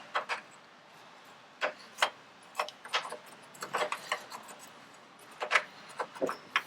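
Scattered sharp metallic clicks and taps of cut-down door hinge bolts and hinge parts on a Land Rover Defender being worked free by hand, a few knocks a second at most and irregular.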